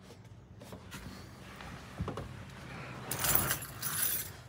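Small loose objects being handled, with a single click about two seconds in and a brief jingling rattle, like keys or small metal items shaken together, in the second half.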